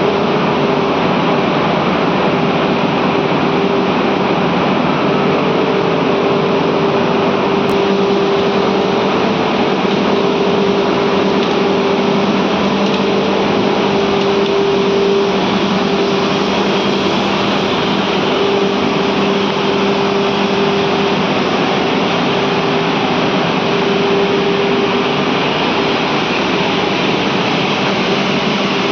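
Steam boiler plant running: a loud, steady machinery noise with a constant hum and a broad hiss.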